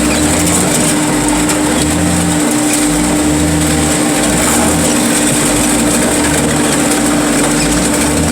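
A car crusher's engine and hydraulics running under load while flattening a van. There is a steady held whine, with a low throb that swells unevenly about once a second.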